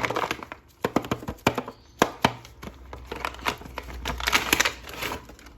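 Plastic toy parts and packaging being handled: sharp clicks and taps throughout, with a denser spell of crinkling and crackling about three to five seconds in.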